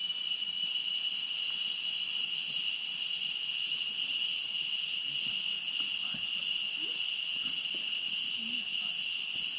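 Insects droning steadily: a continuous high-pitched buzz.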